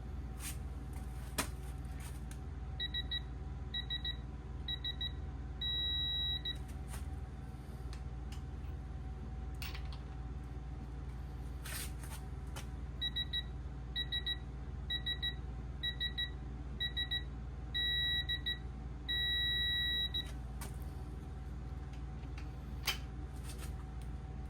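Electronic torque-wrench beeping while main bearing cap bolts are tightened: a run of short beeps ends in a longer steady tone about six seconds in, and a second, longer run near the middle ends in two long tones. The long tone signals that the set torque has been reached. A few faint clicks from the tools can be heard between the runs.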